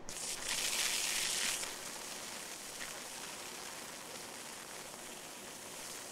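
High-voltage arcs from a ZVS-driven flyback transformer sparking across the metal layer of a CD. The sound starts suddenly as a loud hiss for about the first second and a half, then settles to a steadier, quieter sizzle.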